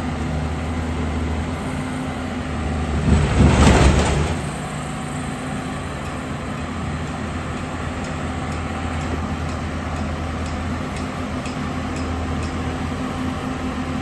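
Heavy diesel engines running steadily, chiefly the Cat 320D excavator as it is loaded onto a flatbed truck. About three seconds in, a louder rush of noise lasts a second and a half.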